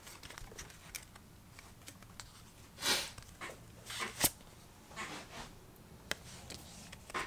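Pokémon trading cards being slid one by one through the hands: a few soft swishes of card on card, with light clicks of card edges.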